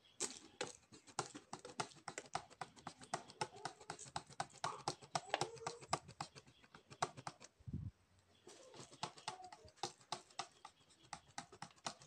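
Hand sprayer pumped over and over, spraying diesel onto a wooden shelf: a fast, irregular run of sharp clicks and squirts, with a short pause about eight seconds in.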